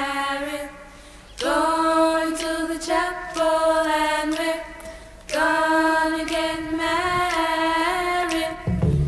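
Female voices singing a cappella in close harmony, holding long chords with two short breaks. Near the end a bass line and beat come in.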